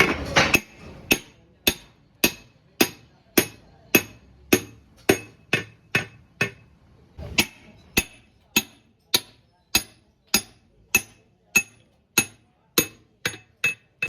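Hammer tapping on metal engine parts in a steady rhythm, about two strikes a second, each with a short metallic ring, as in fitting pistons into a six-cylinder diesel engine. There is a brief pause about halfway through, and the taps come quicker near the end.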